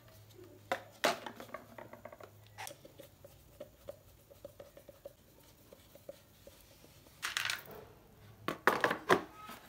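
Hard plastic parts of an electric fan's stand and base being handled on a tile floor: scattered clicks and knocks, the loudest about a second in, with two short bursts of clatter near the end.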